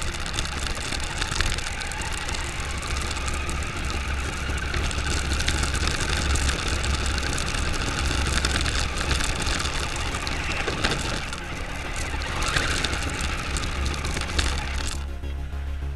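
Onboard sound of a New Bright Corvette RC car driving on a gravel track: its electric motor running and its tyres crunching over the loose stones, with a steady low rumble from the camera shaking on the body. The sound cuts off suddenly about a second before the end.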